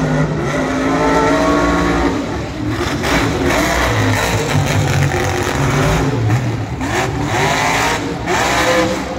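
Monster truck engines revving hard, the pitch climbing and dropping in repeated surges, with a strong rising rev about seven seconds in.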